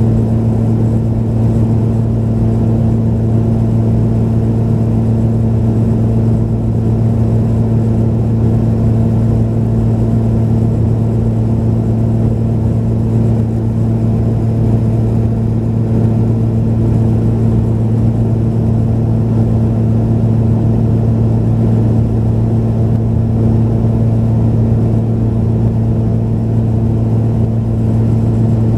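Steady cabin drone of a Pilatus PC-12 in cruise, its single Pratt & Whitney PT6A turboprop and propeller running evenly, heard from inside the passenger cabin. A constant low hum with a second, higher tone over a steady rush of air noise.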